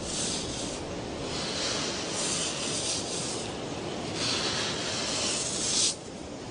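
A crocodile scraping sand over its nest: rasping sand scrapes that come in several long strokes, the last stopping abruptly near the end.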